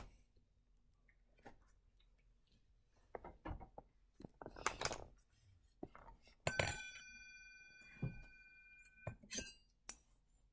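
Toilet paper rustling and tearing in short bursts as a cat shreds it with its paws and mouth. About six and a half seconds in there is a sharp knock, followed by a clear ringing tone that dies away over about two and a half seconds, and then a few light clicks.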